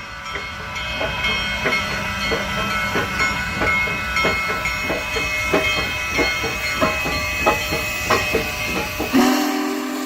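BNSF freight train rolling past, its wheels clacking on the rails about three times a second over a steady rumble and thin high ringing tones. Near the end its Nathan K5LLA five-chime air horn sounds a chord.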